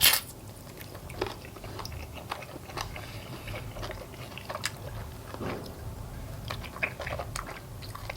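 Close-up chewing and biting on fried chicken wings and their bones: one loud sharp crack right at the start, then scattered small crunches and wet mouth clicks.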